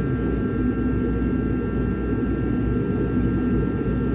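Steady low mechanical rumble with a few faint steady tones above it, unchanging throughout.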